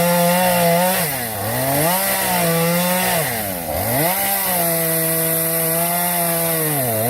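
Gas chainsaw cutting into a rotten tree trunk, running at high revs. Its pitch dips and climbs back three times, about a second in, just before the four-second mark and near the end.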